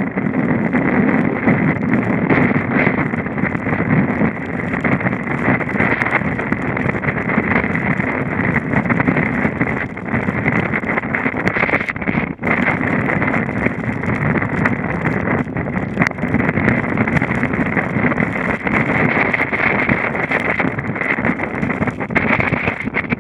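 Storm-force wind blowing hard across the microphone on a sailing yacht's deck, mixed with the rush of breaking seas. Loud and steady, with a brief drop about twelve seconds in.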